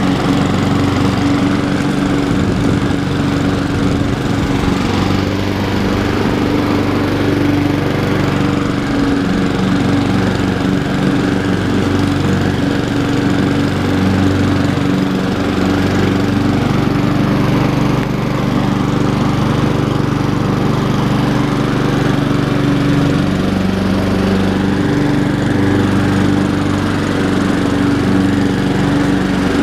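Honda HRR216 walk-behind lawn mower running steadily while being pushed through grass. The low engine note shifts slightly as the cutting load changes.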